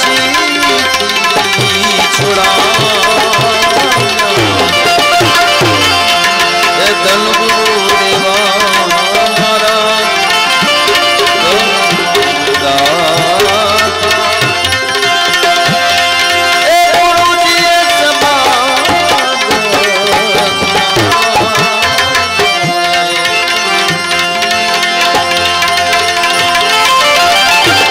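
Live Gujarati santvani bhajan music: tabla keeping a steady rhythm under sustained melodic accompaniment, with gliding melody lines.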